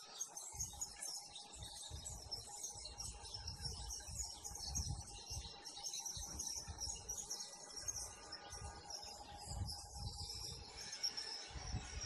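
Outdoor ambience: continuous high-pitched chirping of birds and insects, with irregular low rumbles underneath.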